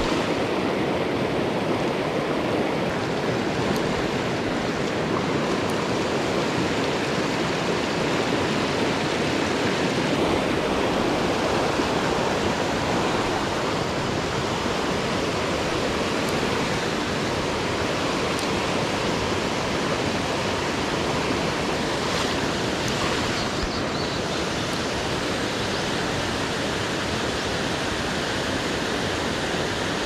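Steady rush of a fast mountain trout stream running high after days of rain, water pouring over rocks and rapids.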